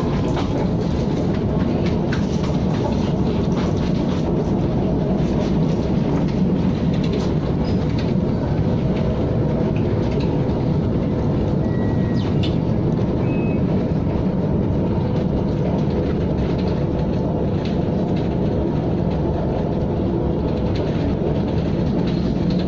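KTM ETS electric train running at speed: a steady rumble of wheels on rail with a few faint clicks, heard on board.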